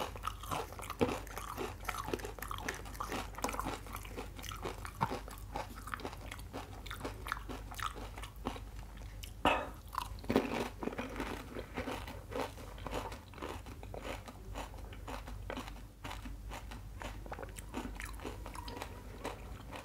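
Close-miked chewing of pani puri: the crisp puri shells crunch between the teeth in a dense run of small cracks, with a louder crunch about halfway through.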